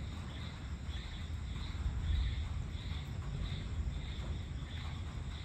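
Insects chirping outdoors at dusk, a pulsing high chirp repeating about every half second, over a steady low rumble.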